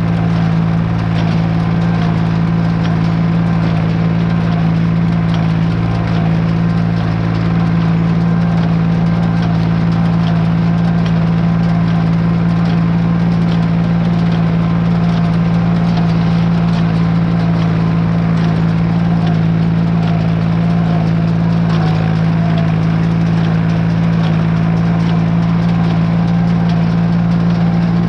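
Tractor engine running steadily at PTO speed, driving a hay baler, with a constant deep hum.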